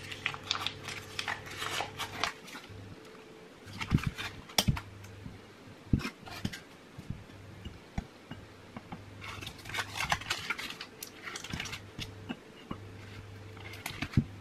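Kitchen utensil scraping and tapping as butter is packed into a measuring cup: scattered small knocks, clinks and scrapes, busiest early on and again past the middle, over a faint steady low hum.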